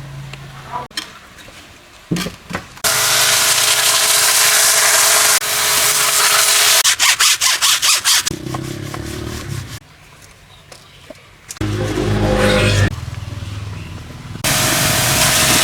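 High-pressure washer jet spraying in several stretches of loud hiss that start and stop abruptly, with a rapid stuttering run of spray bursts midway. A low engine-like rumble comes in briefly in between.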